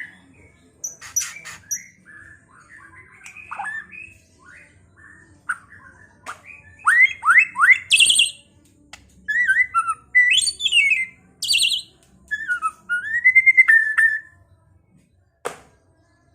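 White-rumped shama (murai batu) singing: varied phrases of clear whistles that slide up and down, a quick run of three rising notes about seven seconds in, and harsh rasping notes between phrases. A short click near the end.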